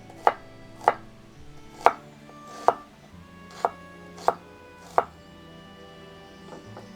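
Knife chopping on a cutting board: seven sharp chops at uneven intervals over the first five seconds.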